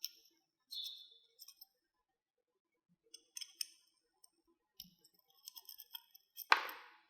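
Small metal parts of a folding knife being handled: screws, tools and pieces clicking and tapping against each other and a hard surface. One brief ring of metal comes about a second in, a quick run of small clicks follows later, and a louder clack comes near the end.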